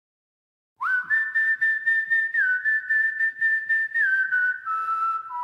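Whistled opening of a song: long held notes that step down in pitch near the end, over a steady pulsing beat of about three a second, starting about a second in.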